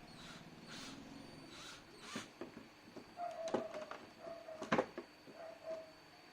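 Several sharp clicks and knocks, the loudest two about a second apart in the middle, with short high chirps repeating between them.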